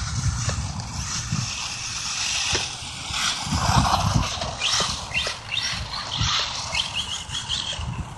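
An electric RC truck with a brushless 540-size motor being driven over slippery ground: short bursts of motor whine with tyre scuffs and knocks from the chassis bouncing. Gusts of wind buffet the microphone throughout.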